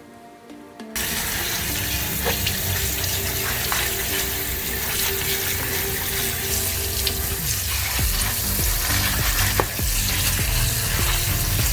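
Kitchen tap running hard into a sink, switched on suddenly about a second in and running steadily.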